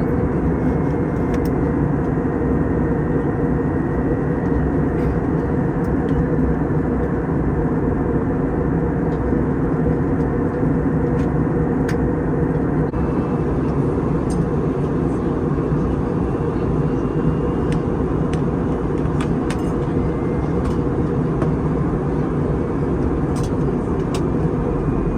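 Steady rumble and rushing noise from inside a moving vehicle, with a faint whine over it, unchanging throughout.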